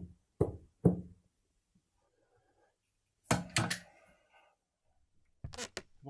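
Three sharp knocks about half a second apart, then a short clatter of knocks about three seconds later, and a quick run of clicks near the end.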